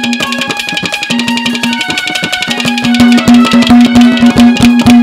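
Instrumental passage of Haryanvi ragni folk music with no singing: fast, dense hand-drum strokes over a steady held note and a melody line.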